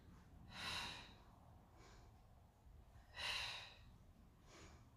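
A woman breathing through a Pilates chest-lift exercise: two audible breaths, about a second in and again about three seconds in, the second as she curls up into the lift.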